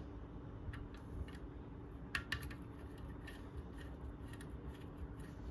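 Hand screwdriver turning screws in the metal mounting frame of a round LED headlight: faint metallic clicks and scrapes, the sharpest pair about two seconds in, over a steady low hum.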